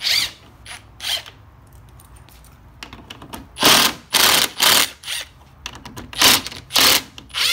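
Ridgid cordless driver spinning out bolts in a string of short bursts, each a fraction of a second, with pauses between as it moves from one fastener to the next.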